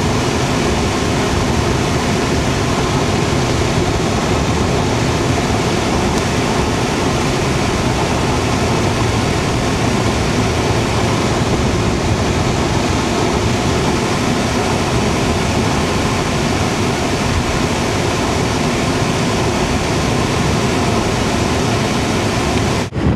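Steady road and wind noise inside the cabin of a 1995 Lincoln Town Car cruising at about 45 mph, with the air-conditioning blower running on a high setting. The noise is even throughout and drops out briefly near the end.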